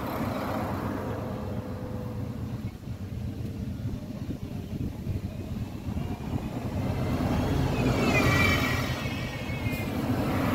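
Road traffic: a steady low rumble, with a car passing that grows louder and peaks about eight seconds in.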